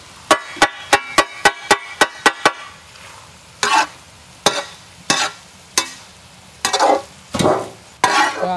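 A long-handled metal ladle striking a wide metal griddle in quick ringing clanks, about four a second for two seconds, then scraping and tossing strokes across the pan roughly once a second as fried noodles, vegetables and egg are mixed, with frying sizzle beneath.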